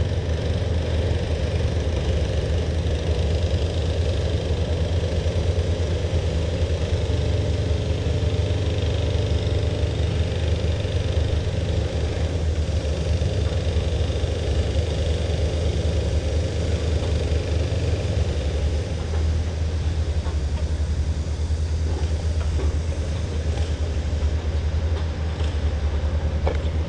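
Construction machinery engine running steadily, a continuous low rumble. Its vibration is what is driving the fish away.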